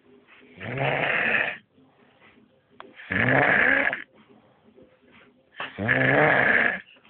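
Loud snoring: three long snores, each about a second, coming roughly every two and a half seconds, with quiet stretches between.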